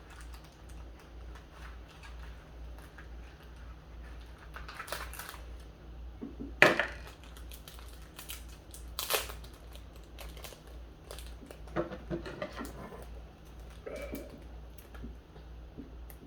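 Scattered crackling and crunching from eating dried, seasoned insect-larva snacks, the loudest crunch about six and a half seconds in, over a steady low hum.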